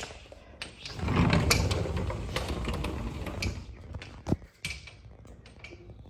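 Sliding glass patio door rolling open along its track: a rumbling slide of about two and a half seconds, with a few clicks around it and a sharp knock a little after.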